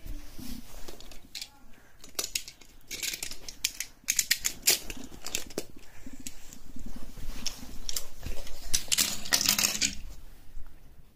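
Close handling noise: irregular clicks, taps and clatter of small hard objects with rubbing right at the microphone, coming in two busy spells, a longer one in the middle and the loudest near the end.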